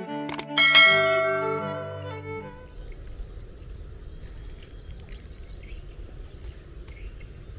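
The close of a channel intro jingle: a bell-like chime struck just under a second in, ringing out and fading over about two seconds. After it, only a low steady background rumble with a faint click near the end.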